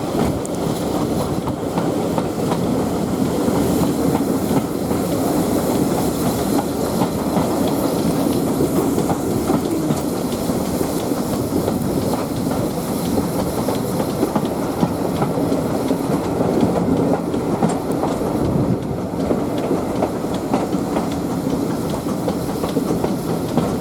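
A passenger carriage on a steam-hauled heritage train running along the line. Its wheels make a steady rumble with irregular clickety-clack over the rail joints.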